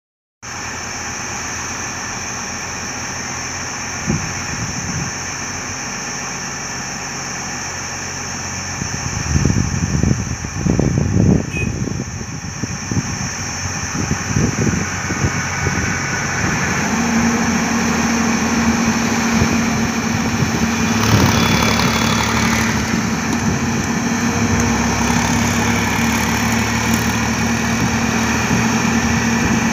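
Heavy diesel engine running, rising and falling unevenly about nine to twelve seconds in, then settling into a steady low hum from about seventeen seconds.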